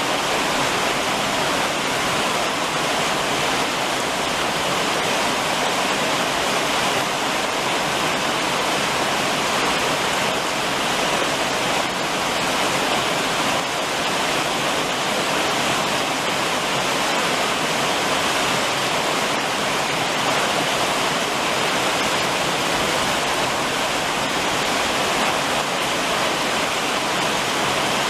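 Summer rain falling steadily on a roof, a dense, even patter with no breaks.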